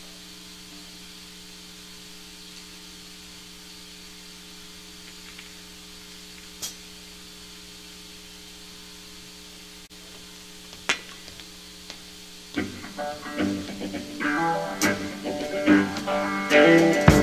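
Steady electrical hum from the stage amplifiers, with a couple of single clicks. About twelve seconds in, a live rock band starts playing: electric guitar and bass with drum hits, getting louder.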